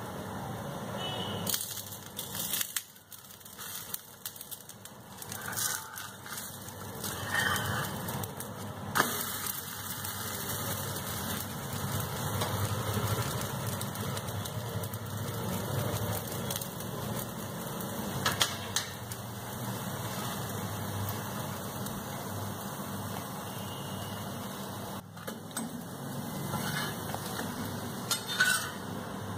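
Urad dal dosa batter sizzling on a hot tawa over a gas burner, a steady hiss with a few sharp clicks. Near the end a steel spatula scrapes the pan as the dosa is folded.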